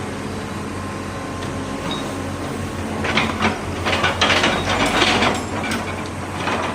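Diesel engine of heavy earthmoving machinery running steadily, with a burst of clanking and scraping of metal and rock from about three seconds in.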